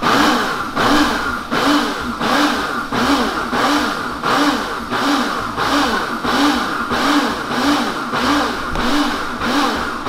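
Britânia countertop blender run on its pulse setting in short repeated bursts, about one and a half a second, the motor speeding up and dropping back each time. It is whipping chilled chantilly cream, pulsed rather than run continuously so the cream does not turn to butter.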